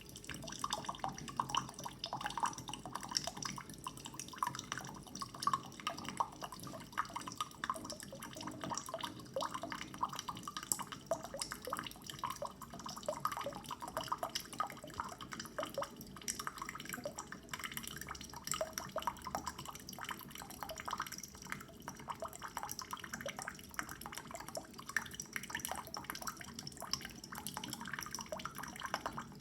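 Waterdrop A1 instant hot water dispenser pouring a 250 ml measure into a mug: a slow, steady trickle of water with dripping and splashing.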